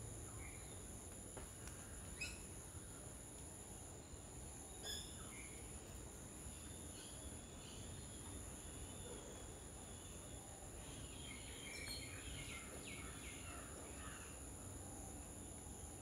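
Faint garden ambience: a steady high-pitched insect drone, with scattered short bird chirps and a busier run of chirps about eleven to fourteen seconds in.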